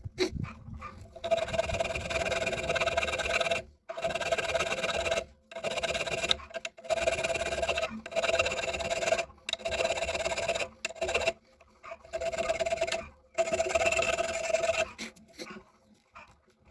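Electric motor of a homemade geared drill press, switched on and off in about nine short runs of one to two seconds each, each with a steady whine that starts and stops abruptly.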